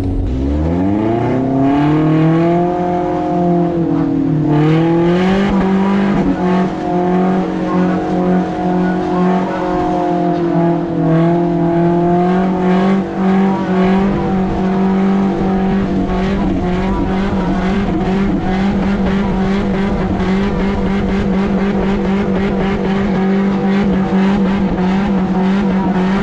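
Vehicle engine revving up from low and then holding high, steady revs, with a fast crackling rattle joining in about halfway through.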